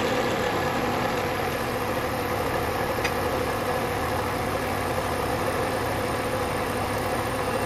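A 3/4-inch carbide end mill on a vertical milling machine cutting a slot 100 thousandths deep in aluminum: a steady cutting and machine noise with a constant hum-like tone running through it.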